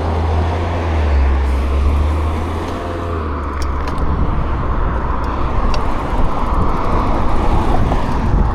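Mountain bike rolling down a dirt slope, heard from an action camera: a deep rumble of wind on the microphone over the first three seconds, then steady tyre and trail noise with a few sharp ticks.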